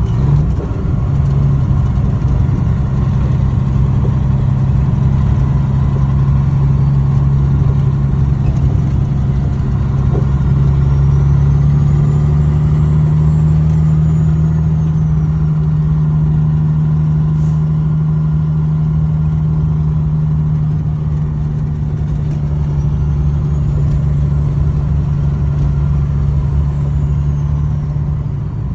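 Truck engine running steadily while driving on a gravel road, heard from inside the cab, its note rising a little about ten seconds in.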